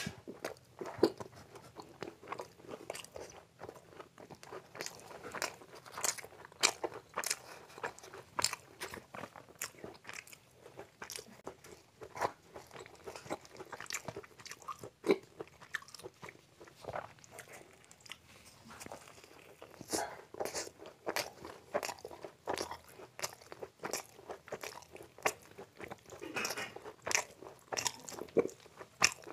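Close-up eating sounds: chewing and crunching of fried puri and Manchurian, with many sharp, irregular wet mouth clicks a few times a second.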